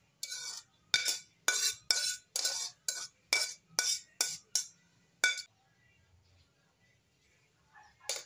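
Metal tongs scraping and clinking against a ceramic plate and a pan as noodles are served, a dozen or so quick strokes that stop a little past halfway.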